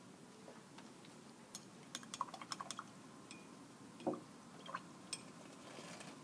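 Faint clinking of a paintbrush against a small glass jar of water: a quick run of light taps about two seconds in, then a duller knock and a couple of single clicks.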